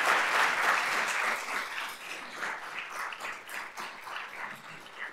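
Audience applause, loudest at the start and thinning out over the next few seconds to a few scattered claps near the end.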